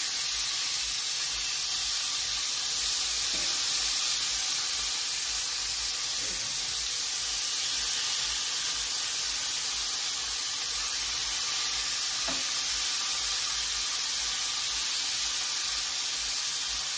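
Pieces of chicken frying in hot oil in a deep skillet: a steady sizzle, with a few faint taps as a fork turns the pieces.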